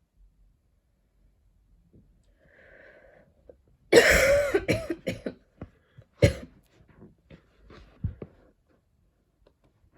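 A young woman's coughing fit: a faint breath in, then a loud hacking cough about four seconds in that breaks into a run of smaller coughs, another hard cough about two seconds later and a last one near the end. It is a lingering cough with a tickle in the throat that she can't shake.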